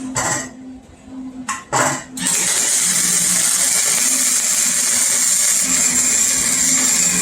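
Metabo HPT angle grinder cutting off excess exhaust pipe: two short bursts, then from about two seconds in a steady, loud high whine with the hiss of the wheel biting metal.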